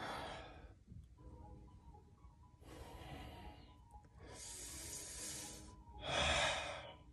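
A man breathing hard under strain while holding a plank, four heavy breaths, the last one the loudest.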